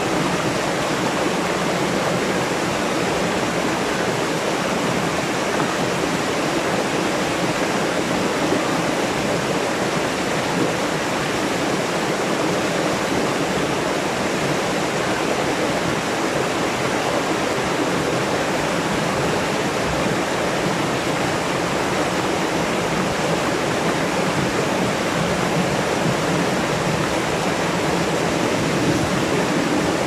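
Small waterfall cascading over rocks into a stream pool: a steady, close rush of white water.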